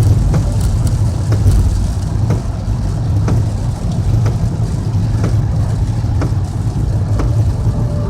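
Inside a moving car in heavy rain: a steady low rumble of engine and tyres, with rain ticking on the car.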